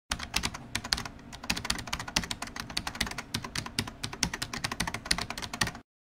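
Keyboard typing: a rapid, irregular run of key clicks that stops abruptly near the end.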